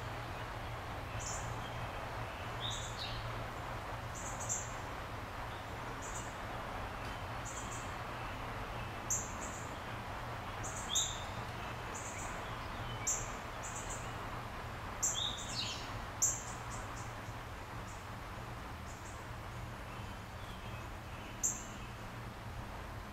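Outdoor background with birds giving scattered short high chirps and a few quick falling whistles, over a steady hiss and a low hum.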